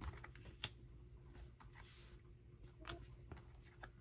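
Faint, scattered light taps and clicks of stiff photocards being slid off a stack and laid down on a tabletop.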